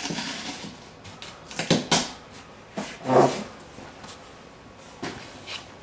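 Hand work with tape and a sanding block on a car's clear-coated rocker panel: a few short, irregular rubbing and scraping strokes, with a brief falling squeak about three seconds in.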